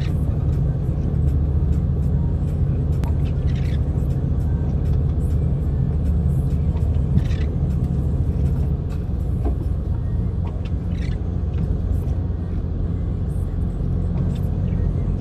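Steady low rumble of a vehicle's engine and tyres, heard from inside the cab while driving on a snow-covered road. A few short higher-pitched sounds break in every three to four seconds.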